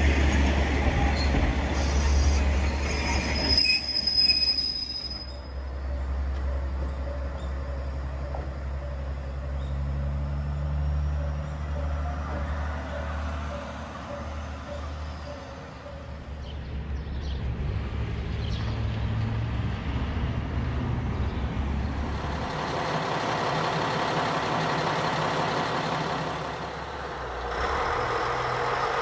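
JR Kyushu KiHa 40-series diesel railcars: one runs along the platform with wheels squealing on the rails, then diesel engines run with a steady low drone.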